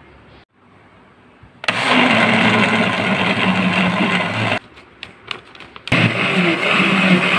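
Electric countertop blender running, grinding wet curry paste ingredients, with a wavering motor hum under the loud churning. It starts about a second and a half in, stops for over a second with a few clicks, then runs again.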